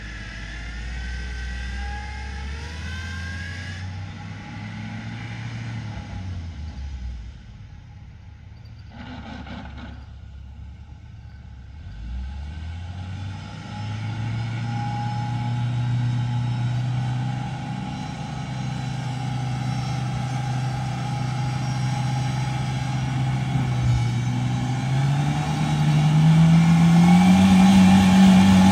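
Off-road 4x4's engine revving under load on a steep climb: the revs rise over the first few seconds, fall away about seven seconds in, then build again from about twelve seconds and hold steady. Near the end the engine steps up to a higher pitch and holds there, at its loudest.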